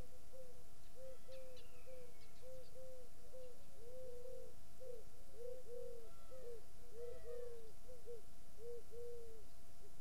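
Pigeon cooing: a long run of short, low, arched notes, many coming in pairs, with faint higher chirps from other birds now and then.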